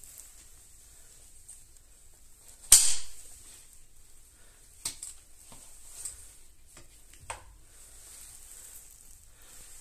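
Folding bicycle pedal on an electric bike being folded by hand: one sharp snap about three seconds in, then several lighter clicks as it is worked into place.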